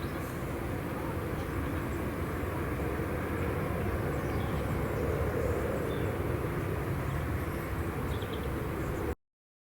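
Steady low rumble of airport ambience, likely distant jet engines, with faint chirps above it; it cuts off suddenly near the end.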